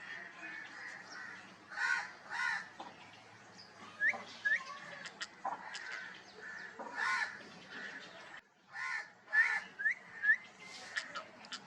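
Pet parrot calling: several harsh squawks and a few short rising chirps, with scattered sharp clicks in between.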